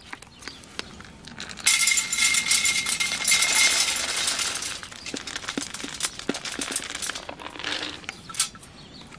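Wood pellets poured from a glass jar into a Pyrolino stainless-steel pellet and wood stove, rattling and clinking against the metal, which rings faintly. The pour starts a couple of seconds in and lasts about three seconds, followed by scattered clicks as the pellets are shifted by hand.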